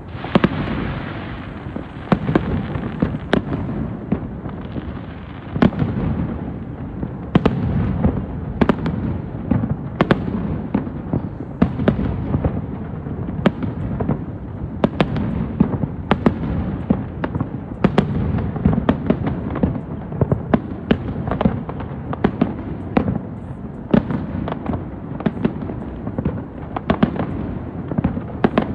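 Fireworks display: a dense, unbroken run of sharp bangs and crackles over a continuous low rumble of booms.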